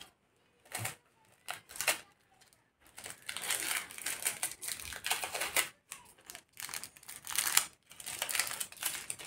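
Clear sticky tape being pulled off the roll and torn into pieces, with crinkling of tape and cardstock. A few short crackles at first, then near-continuous crinkling and tearing from about three seconds in.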